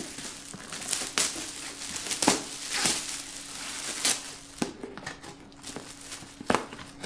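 Gift wrapping paper crinkling and rustling as it is pulled open, in a series of short, sharp rustles.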